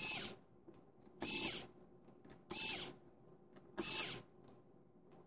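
Hitachi DB3DL2 cordless screwdriver backing screws out of a graphics card's circuit board in four short runs, each about half a second long and about 1.3 s apart. The footage is played at three times speed, which shortens the runs and raises the motor's whine.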